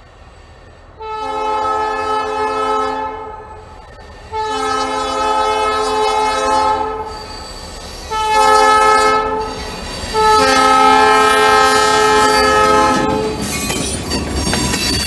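The horn of the Ohio South Central Railroad's 1951 EMD diesel locomotive sounds four blasts, long, long, short, long, several notes at once. This is the standard warning signal for a grade crossing. Near the end, the wheels clatter and squeal over the rails as the locomotive and hopper cars pass.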